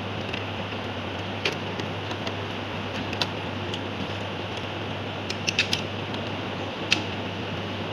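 Scattered small metallic clicks of a screwdriver and crimped wire lugs on the terminal screws of a circuit breaker's auxiliary switch, with a quick cluster a little after five seconds, over a steady low hum.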